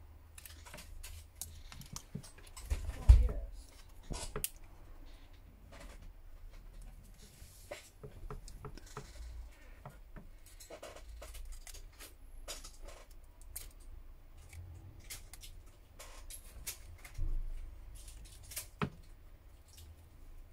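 Plastic pry card and opening picks clicking and scraping along the edge of a smartphone's glued back cover as it is pried open: scattered small clicks and scrapes, with one heavy knock about three seconds in.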